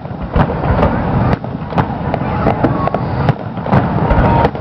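Aerial fireworks shells bursting in a display: a run of sharp bangs at irregular intervals, roughly two a second, over a low rumble.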